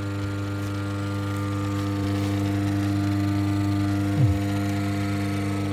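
The lathe's old single-phase AC motor running on the bench with a steady electrical hum. It runs normally once its sticking thermal-cutout reset button has been pressed, so it is not burnt out after all. A brief falling squeak comes about four seconds in.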